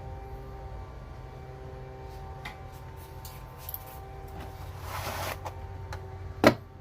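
Wrenches being handled and set down: a few light clicks, a short rustle about five seconds in, and a sharp metal knock near the end, over a steady low background hum.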